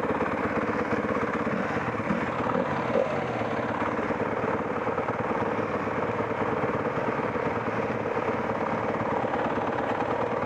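Off-road motorcycle engine running at a steady pace, a fast even pulsing with little change in revs.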